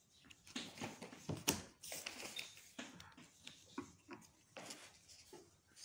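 Chalk scratching and tapping on a blackboard while writing, in a run of short, irregular strokes.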